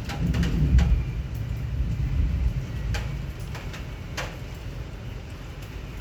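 Thunder rumbling, loudest in the first two or three seconds and then fading away, over steady rain with sharp drips now and then.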